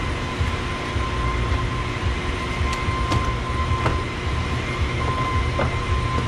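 Several sharp clicks as the door trim panel is lifted off its clips, over a steady low rumble with a constant thin whine in the background.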